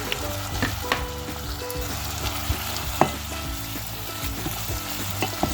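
Chicken, onion and carrots frying in butter and oil in a pan, a steady sizzle, with a few sharp knocks of a utensil against the pan as it is stirred.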